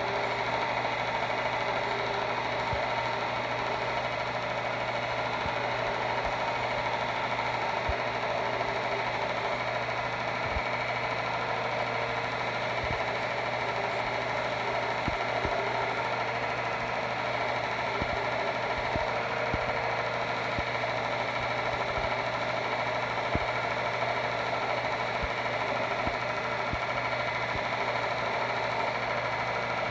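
A motor-driven machine running steadily with a constant low hum, plus a few faint knocks.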